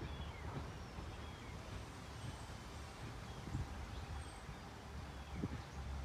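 Small birds chirping and whistling, short scattered calls, over a faint steady low rumble.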